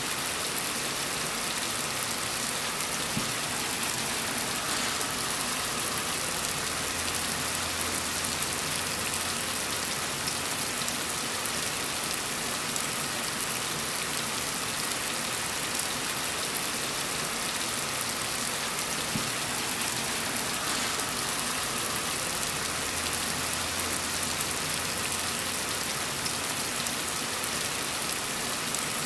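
Heavy rain falling steadily in a dense, even hiss, with a faint low hum that swells twice for a few seconds.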